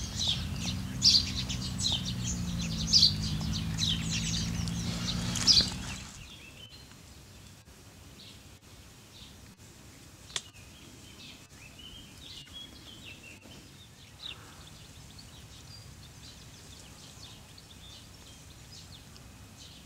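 Birds chirping, sharp high calls about once a second over a low steady hum for roughly the first six seconds; then the hum drops away and only faint, scattered bird calls remain.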